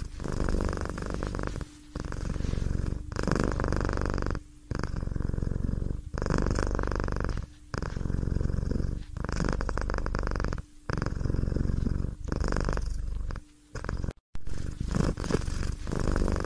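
Domestic cat purring close to the microphone: a steady low rumble broken by brief pauses about every one and a half seconds.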